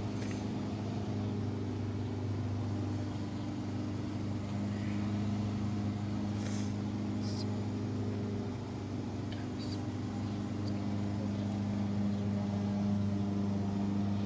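Steady low hum of a running machine, holding several fixed low pitches without change, with a few faint light clicks over it.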